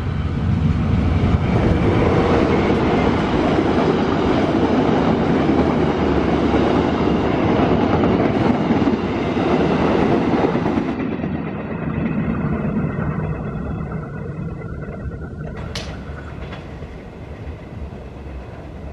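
Diesel-hauled passenger train passing close at speed: the locomotive and the rolling wheels on the rails build to a loud, dense rumble as the carriages run by. After about 11 s the sound drops to a duller rumble from a receding train that fades steadily away.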